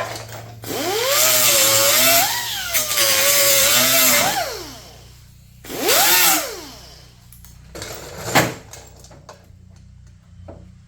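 Power grinder grinding the edge of a steel hood patch panel to fit it: a run of about four seconds with the motor's pitch dipping and rising under load before it winds down, then a short second burst that spins down. A single sharp knock comes about eight seconds in.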